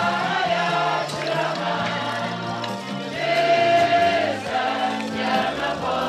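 Choir singing a hymn with instrumental accompaniment, voices holding long notes over a bass line that moves in steady steps.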